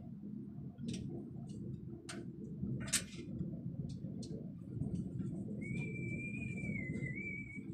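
Sharp metallic clicks and taps from handling the air brake hose fittings on a trailer relay valve, the loudest about three seconds in, over a low steady rumble. In the last two seconds a thin, steady, high whistle sets in.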